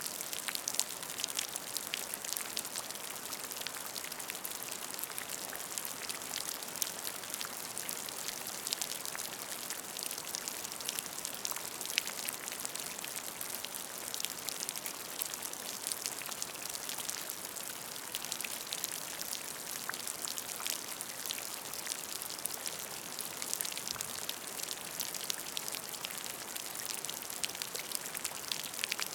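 Rain falling into a puddle: a steady patter of many small drops splashing onto water, with close individual drips standing out.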